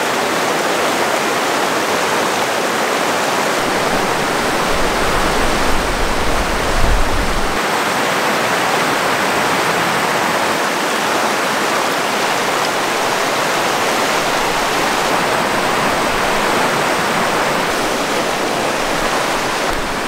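Mountain river water rushing, a loud, steady roar of fast-flowing water, with a brief low rumble about five seconds in.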